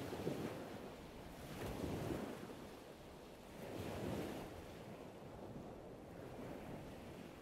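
Small waves washing onto a sandy Lake Huron beach, the surf swelling and falling about every two seconds.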